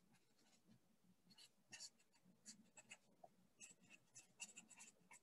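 Faint squeak and scratch of a Sharpie felt-tip marker writing on paper, a run of short handwriting strokes that starts about a second in.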